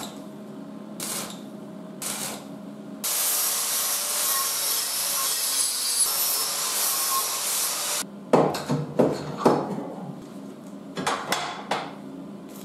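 Angle grinder running in a homemade bench stand, its motor humming steadily while a workpiece is pressed against the spinning disc. It grinds in a few short touches, then in one long continuous grind of about five seconds, then in a series of sharp short touches.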